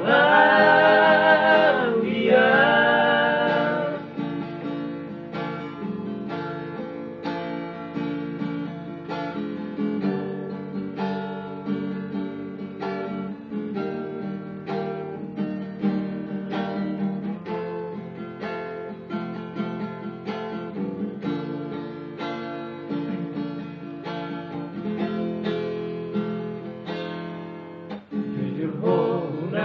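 Acoustic guitar strummed in a steady rhythm, with men singing together over it for the first few seconds. The guitar then plays on alone, and the singing comes back just before the end.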